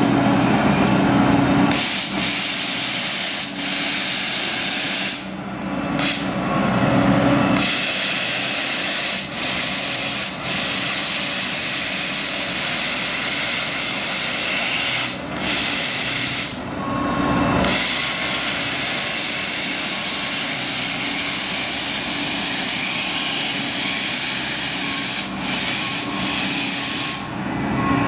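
Truck-mounted pothole patching machine working a road crack: a loud, steady hissing rush from its patching head, which starts about two seconds in and cuts off briefly several times. The truck's engine hums underneath and is heard alone in the breaks.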